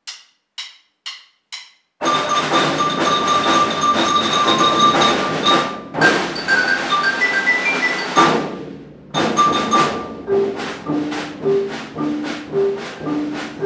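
Four sharp count-in clicks half a second apart, then a percussion ensemble playing: marimbas and xylophones ringing out pitched notes over snare drums. About two-thirds of the way in the music dies down briefly, then comes back in a rhythmic section with low mallet notes.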